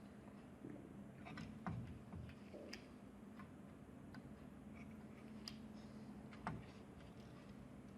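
Faint steady low hum with irregular light clicks and taps, the two clearest about two seconds in and again near the end.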